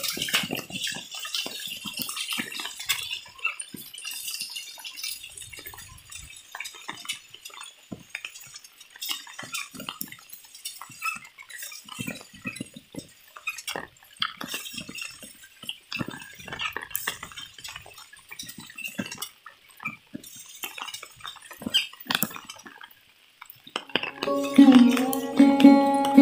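Rain falling, with irregular drips and taps of raindrops over a light hiss of rain. About 24 s in, a plucked-string tune that sounds like a sitar starts and becomes the loudest sound.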